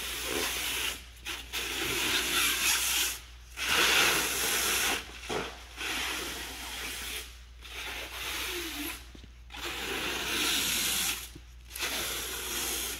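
18-inch 40-micron TPC Velocity Pro hand stretch film unwinding off its hand roll as it is pulled taut around a pallet load: a loud, rough hiss in stretches of a second or two, broken by short pauses about every two seconds.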